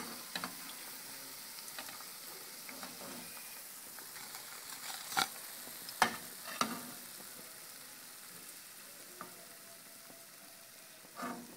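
Oil sizzling steadily while golden-brown spinach and potato pakoras are lifted out of the deep-fry pot with a slotted spoon, the hiss slowly fading. A few sharp clinks of the spoon come about five to seven seconds in.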